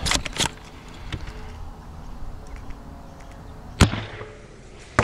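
3D-printed SBL spring-powered Nerf blaster: a brief clatter of handling and priming at the start, then a single sharp snap about four seconds in as the spring-driven plunger fires a foam dart. Another sharp click follows right at the end.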